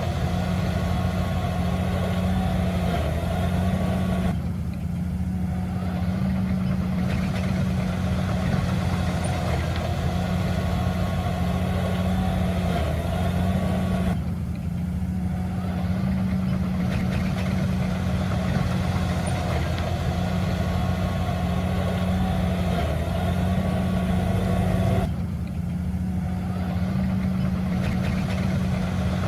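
Heavy earthmoving machinery engine running steadily with a low hum. About every ten seconds the higher-pitched noise drops away for two or three seconds, then returns.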